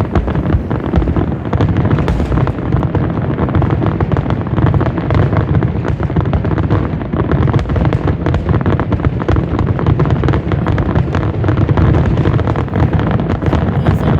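Fireworks finale: aerial shells bursting in a dense, unbroken barrage, many bangs overlapping with no pause.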